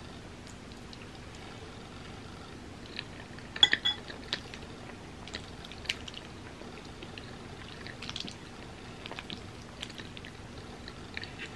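Close-miked eating sounds: a metal spoon clinking and scraping in a bowl of creamy macaroni pasta, with wet mouth and chewing sounds. The clicks come scattered through, the loudest a brief clink with a short ring a few seconds in.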